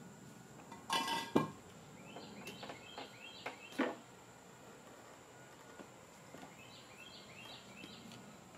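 Walk-behind lawn mower with a steel deck being tipped down from standing on end onto its wheels on concrete: a metallic clatter about a second in and a knock as it settles just before four seconds.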